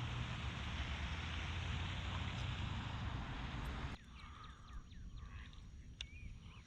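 A steady rushing noise, like wind on the microphone or moving water, cuts off suddenly about four seconds in. Quieter outdoor ambience follows, with birds chirping.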